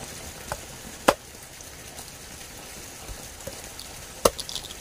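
A few sharp knocks: a loud one about a second in and another near the end, followed by a couple of lighter taps.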